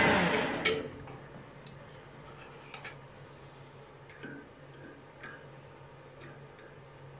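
Metal lathe running down and stopping within about the first second. A low steady hum follows, with scattered light clicks and ticks as a digital caliper is set against the freshly turned cylinder end cap.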